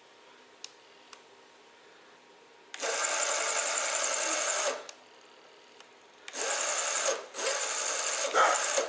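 24 V 250 W electric motor of a remote-control lawn mower, driving it by chain and run in bursts: one steady whir about two seconds long, then two shorter runs later on. A couple of short, louder sounds come just before the end.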